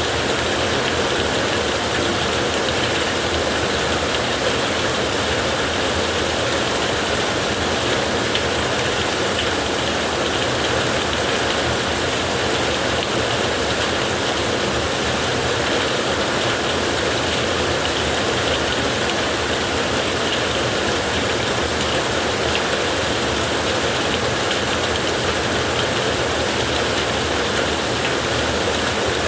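Heavy rain drumming steadily on a tin roof, a dense even roar with no let-up.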